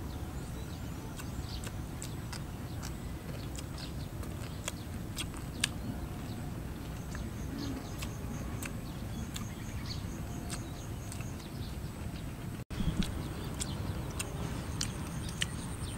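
Steady low outdoor background rumble with scattered faint clicks, and a faint, high, rapid pulsing from about seven seconds in. The sound cuts out for an instant near the end.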